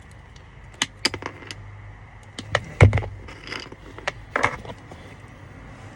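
Irregular clicks and light clatter of small tools and wiring parts being handled while fuse tap connectors are stripped onto hardwiring cables, with one sharper knock about three seconds in, over a steady low hum.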